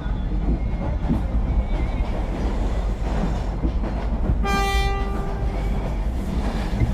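Train running with a steady low rumble, and a train horn sounding once about four and a half seconds in, lasting about a second and a half and fading at the end.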